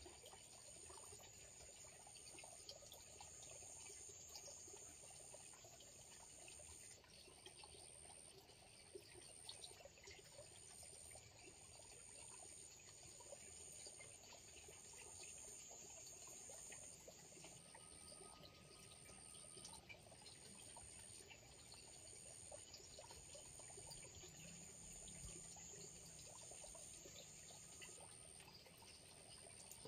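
Faint ambience at a fish pond: water trickling steadily, with a high thin tone that pulses on and off about every second and a half.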